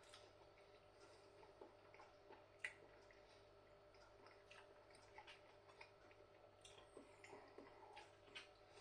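Near silence with faint scattered small clicks of someone eating a mouthful, one slightly louder click about two and a half seconds in.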